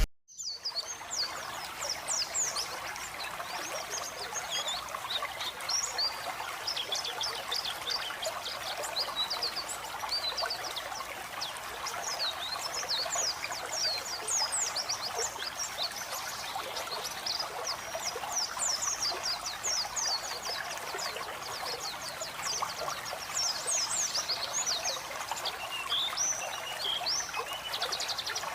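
White-eyes (pleci) singing in rapid, high twittering chirps and trills over a steady trickle of flowing water.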